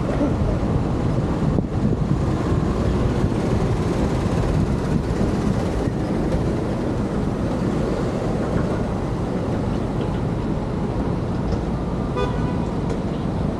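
Road traffic at a city intersection: a steady low rumble of car engines and passing vehicles, with a brief pitched tone near the end.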